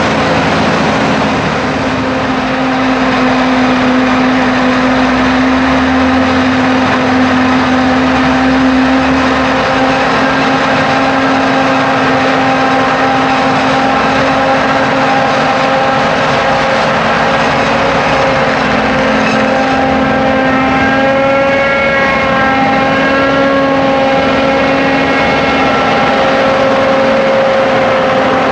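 Forage harvesting machinery running steadily under load: a self-propelled forage harvester and tractor working through maize, with a constant engine hum. About two-thirds of the way in, a higher, slightly wavering whine joins.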